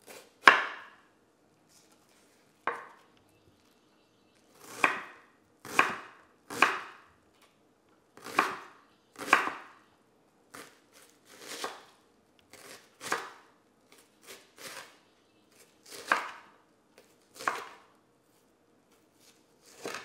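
Kitchen knife chopping a white onion on a bamboo cutting board: about fifteen separate cuts, slow and unevenly spaced.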